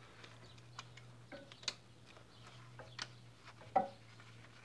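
Faint, irregular metallic clicks and taps, about six in all: a new bolt and stabiliser link being positioned and started by hand on the link's upper mount. A steady low hum runs underneath.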